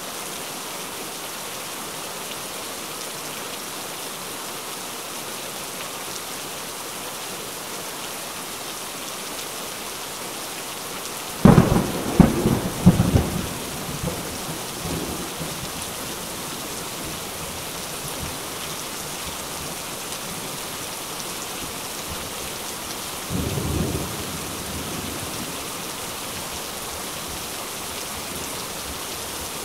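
Steady rain with a sudden loud crack of thunder about a third of the way in, breaking into several claps over two or three seconds before rumbling away, and a shorter, fainter rumble of thunder about two-thirds of the way through.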